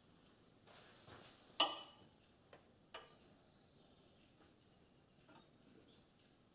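A few light metallic clicks and taps as hands work a mounting bolt and its hardware on a small motorcycle frame. The sharpest click comes about one and a half seconds in, with quieter ones a second later and again near the end.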